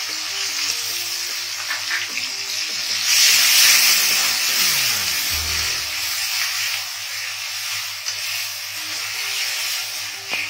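Sliced onions sizzling in hot oil in a wok as they are stirred, the sizzle swelling louder about three seconds in. Soft background music plays underneath.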